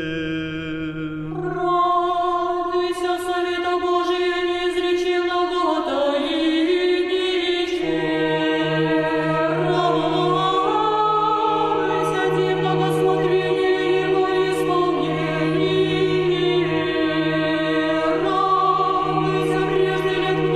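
Orthodox church choir singing a slow chant in sustained chords. A low held bass note sounds under the voices, drops out about two seconds in and comes back about eight seconds in.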